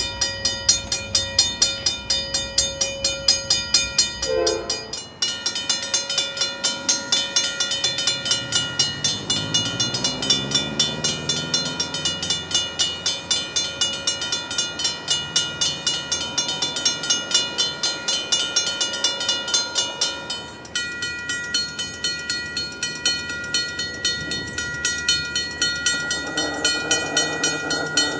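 Safetran mechanical railroad crossing bells ringing: a fast, even run of clanging strikes, a few a second. The sound cuts twice to a different bell with a different pitch. A low rising drone sits under the bells for a few seconds in the middle stretch.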